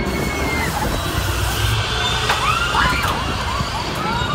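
Outdoor carnival ambience heard from up on a Ferris wheel: a steady low rumble and wind on the microphone, with several short high shrieks rising and falling about halfway through.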